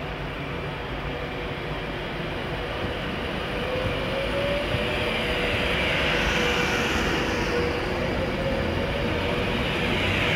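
Class 390 Pendolino electric train moving through the station, a steady rumble that grows louder as the carriages pass. A whine sits under it, and high-pitched tones twice glide up and back down.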